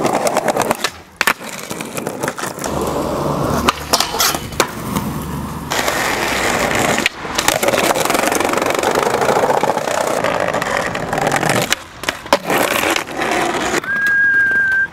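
Skateboard wheels rolling over pavement and paving stones, broken several times by sharp clacks of the board popping and landing. Near the end, a steady high whistle is held for about a second.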